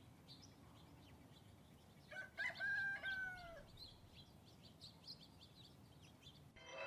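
A rooster crows once, a call of about a second and a half that holds its pitch and then falls away at the end, over faint chirping of small birds. Music comes in just before the end.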